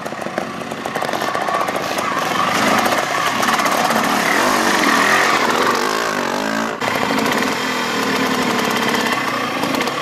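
Two-stroke trials motorcycle engine revving up and down in short throttle blips, loudest through the middle, with a brief sudden break about seven seconds in.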